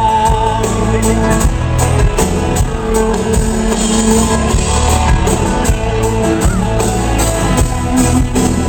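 Live country-rock band playing an instrumental break between vocal lines: drums keeping a steady beat under guitars.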